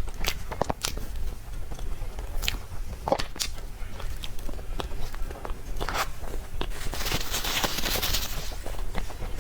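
Close-miked mouth sounds of someone eating cake: bites and moist chewing with scattered small clicks. A brief hissing rustle comes about seven seconds in.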